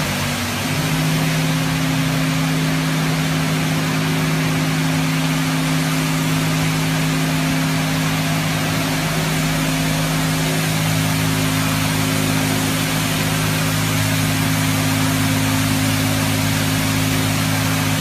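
Leisuwash 360 touchless car wash machine spraying a car with high-pressure water: a steady hiss of spray over a steady machinery hum that sets in about a second in, with a deeper hum joining about halfway through.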